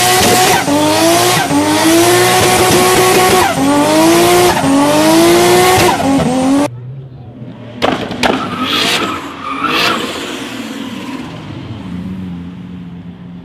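A Mk4 Toyota Supra doing a burnout: the engine revs up again and again, each rev a rising climb in pitch, over continuous tyre squeal. About two-thirds of the way through the sound cuts off abruptly. It gives way to a quieter car driving past with a few short revs.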